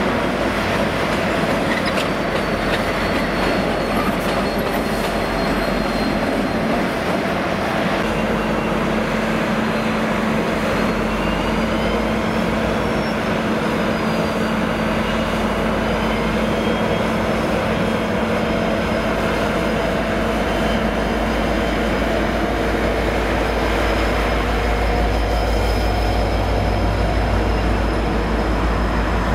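V/Line N class diesel-electric locomotive running slowly through yard sidings: a steady deep engine rumble that grows louder near the end as it passes close by, with thin, wavering high wheel squeal on the curved track.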